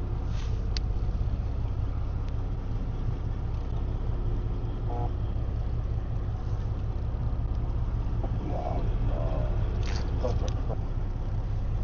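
Fishing boat's engine running steadily with a low, even rumble, with a few faint clicks near the start and near the end.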